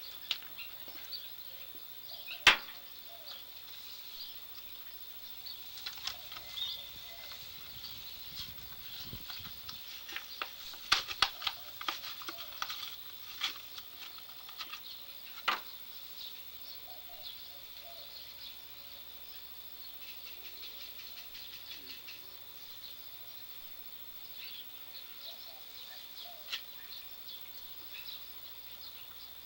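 Steady high insect chirring, with scattered sharp clicks and knocks: a loud one a couple of seconds in, a run of them around the middle, and one more soon after.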